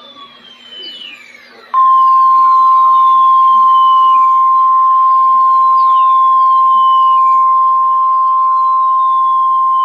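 NOAA Weather Radio 1050 Hz warning alarm tone: one loud, steady tone that starts about two seconds in and holds without a break, announcing a severe thunderstorm warning. Before it comes a faint stretch with thin falling whistles.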